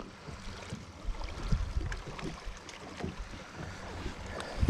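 Wind rumbling on the microphone, with scattered small knocks and taps from a just-landed crappie being handled in a boat.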